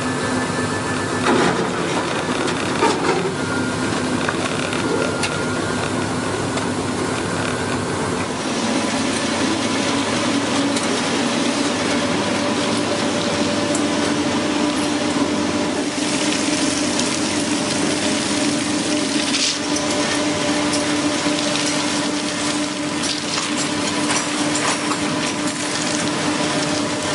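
Locomotive running along the track: a steady hum with wheel-on-rail and wind noise. Two sharp knocks come about one and three seconds in as it strikes the tree lying across the rails, and the hum grows stronger after about eight seconds.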